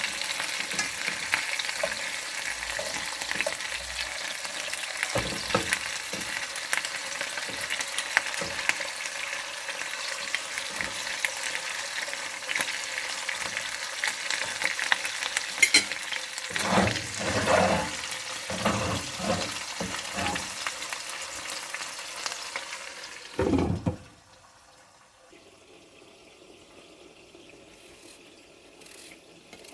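Food sizzling as it fries in oil in a pan, with a utensil stirring it and now and then knocking and scraping against the pan. The sizzling cuts off suddenly about four-fifths of the way through, leaving only a few faint clicks.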